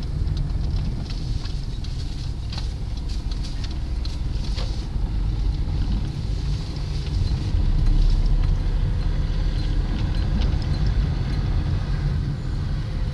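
A car being driven, heard from inside the cabin: a steady low rumble of engine and road noise, with a few small clicks and rattles scattered through it.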